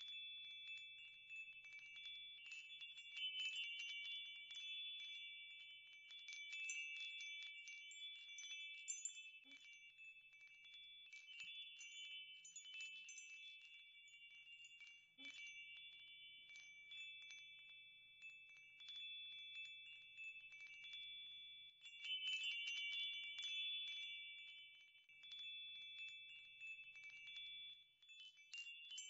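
Wind chimes ringing continuously: a cluster of several high tones struck over and over in irregular flurries.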